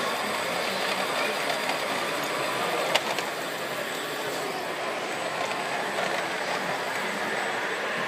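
Radio-controlled model truck driving, its motor and drivetrain giving a steady running noise together with its wheels rolling on the track. A single sharp knock about three seconds in.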